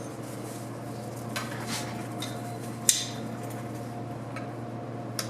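Light metal clinks and taps of hand tools against parts in a 700R4 transmission case as the front band is worked loose, a few scattered strikes with the sharpest about three seconds in, over a steady low hum.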